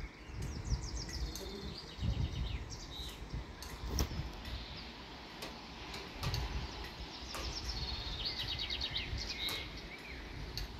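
Small songbirds chirping, with a quick trilled phrase about a second in and another near the end, over the low rumble of wind gusting on the microphone.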